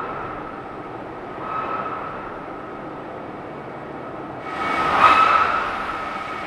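AR-MAX1 axial/radial main air compressor running on the test stand: a steady rushing machine noise with a high whine. About four and a half seconds in, a surge of rushing air swells up loudly and dies away over about a second and a half, as the compressor, throttled to its surge line, goes into surge.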